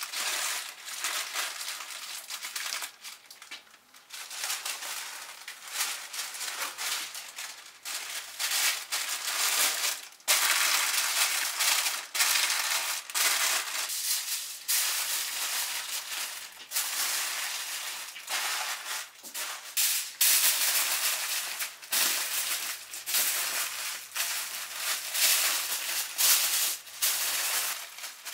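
Aluminium foil and baking paper crinkling and crackling in irregular bursts as they are folded and pressed by hand around a bulky bundle.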